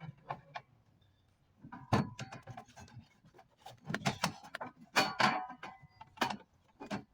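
Irregular knocks, scrapes and light metallic clinks from sheet-metal sandwich chimney pipe parts being handled and fitted into place, with the busiest clattering about five seconds in.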